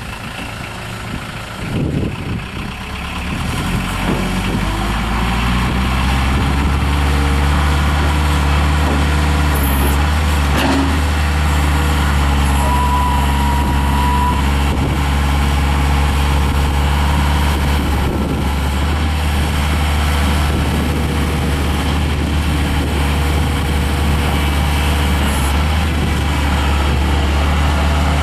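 1998 Scat Trak 1300C skid steer loader's 49 hp engine, freshly started, picking up speed over the first few seconds and then running steadily. A short high-pitched tone sounds about twelve seconds in.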